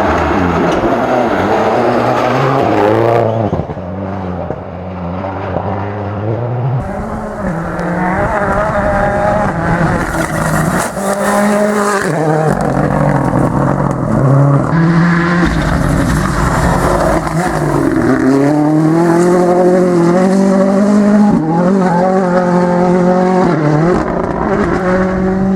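Rally car engines revving hard, pitch climbing and dropping back through gear changes, as several cars pass one after another, with some tyre squeal.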